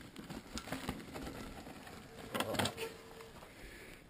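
Mountain bike rolling toward the camera over grass and dirt: tyre noise with scattered clicks and rattles, loudest about two and a half seconds in.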